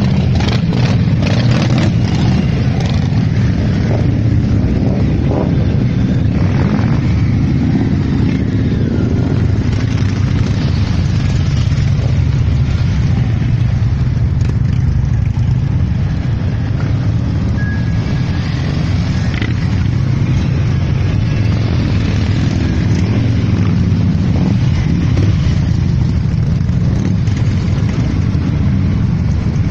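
Many cruiser and touring motorcycles ride slowly past one after another in a long procession, their engines making a steady low rumble.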